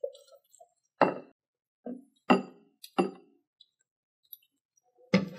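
Wooden spoon knocking against the bowl as thick pesto is spooned out of a plastic food processor bowl into a glass dish: three or four sharp knocks in the first few seconds.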